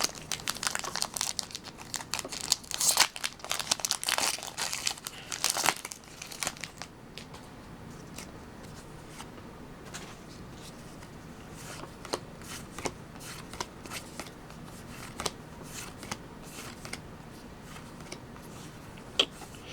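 Foil booster pack wrapper being torn open and crinkled, busiest for the first six seconds or so, then quieter handling with scattered light clicks as the trading cards are gone through.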